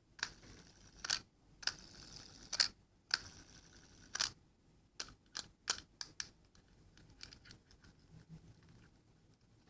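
Irregular sharp clicks and taps of small hard objects being handled. They are about a second apart at first, then come quicker and fainter after about five seconds.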